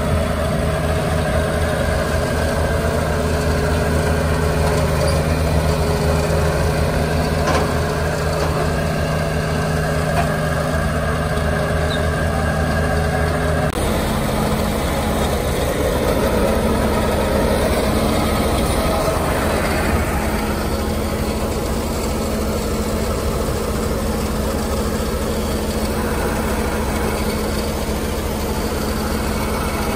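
Ford bucket truck's engine idling steadily, with its tone shifting abruptly about halfway through.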